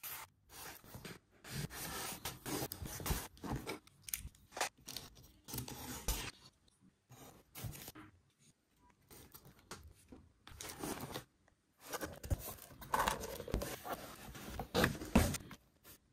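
A cardboard shipping box being handled and opened: irregular scraping, tearing and rustling of cardboard and packing tape, with knocks against the table and a quieter stretch in the middle.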